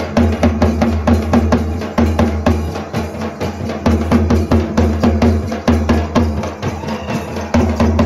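Adivasi dance drumming: large two-headed drums beaten with sticks in a fast, steady rhythm of about five strokes a second.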